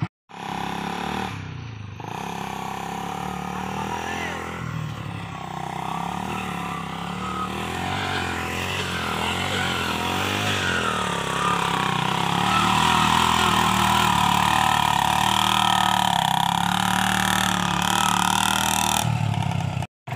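Honda Revo 110 cc single-cylinder four-stroke motorcycle engine of a homemade mini truck running under load as the truck drives over rough grass, its pitch wavering as the revs change, getting louder in the second half.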